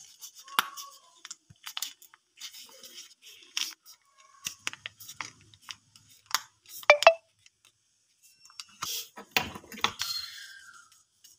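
A foil sachet of cream bleach crinkling and crackling as it is squeezed out over a glass bowl, with scattered sharp clicks and taps. There is a louder knock about seven seconds in.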